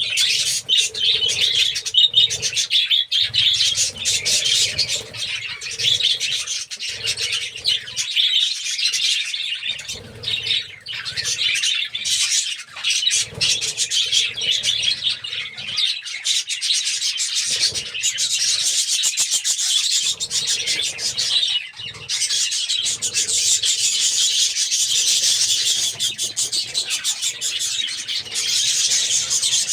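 A colony of budgerigars chattering and chirping constantly, many birds calling over one another in a dense, busy chatter.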